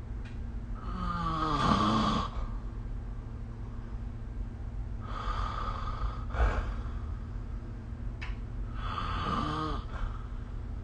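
A sleeping person snoring: three snores about four seconds apart, over a steady low hum.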